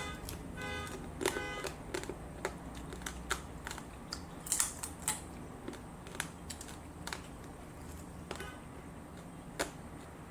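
Eating sounds at close range: irregular small clicks, taps and mouth noises of someone chewing a meal, over a steady low hum.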